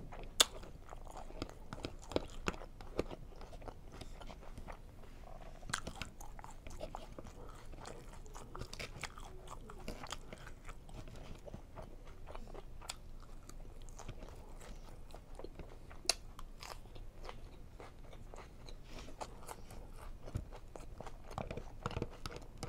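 Chewing mouthfuls of Cobb salad, with scattered sharp clicks of a fork against the clear plastic salad container.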